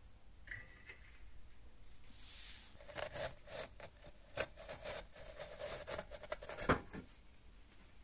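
A rough ceramic crucible rubbing and scraping against a steel pipe sleeve as it is handled and turned, with a run of sharp clicks and knocks, the loudest one near the end; a short squeak about half a second in.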